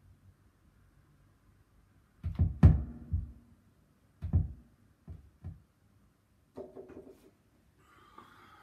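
A series of dull knocks and thumps. The loudest is a quick cluster about two and a half seconds in, followed by single knocks spaced over the next few seconds and a short rattle of knocks near the end.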